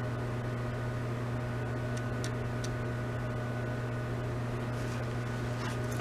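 Steady electrical hum of running lab equipment: a low drone with a few fixed higher tones over a faint hiss. A few faint ticks come about two seconds in.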